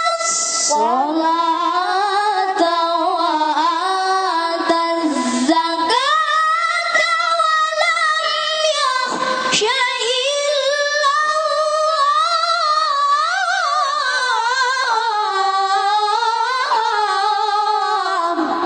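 Melodic Qur'an recitation (tilawah) by a qori': one high, clear voice holding long ornamented phrases with sliding, wavering pitch, pausing briefly for breath twice.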